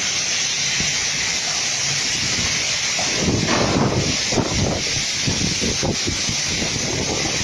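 Steady hiss of a heavy storm downpour. From about three seconds in, gusts of wind buffet the microphone.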